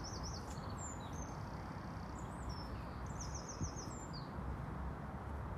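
A small songbird singing: quick high trilled phrases with scattered chirps, one phrase right at the start and another a little past the middle, over a steady low background noise.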